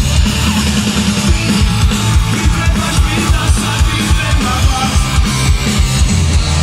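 Rock band playing loudly live through a concert PA, with electric guitar, bass and a fast, steady drum beat, heard from the audience.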